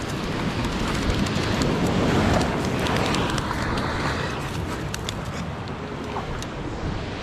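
Surf washing on a stony shore with wind buffeting the microphone, and a scatter of small sharp clicks and taps on the stones through most of it.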